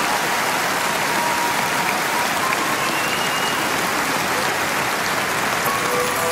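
Concert audience applauding and clapping steadily. A few held musical notes come in near the end as the song's introduction begins.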